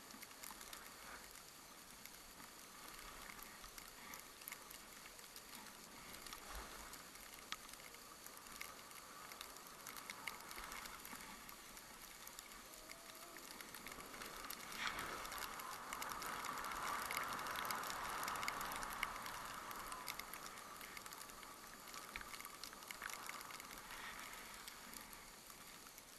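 Skis hissing and scraping over snow on a downhill run, swelling to their loudest a little past halfway, with scattered small clicks and rattles.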